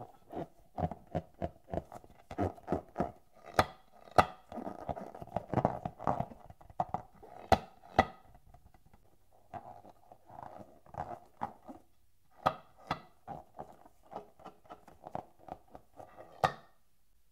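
Hands squeezing and rubbing a long taut latex balloon, its rubber squeaking in a quick, irregular string of short squeaks, with a couple of brief pauses.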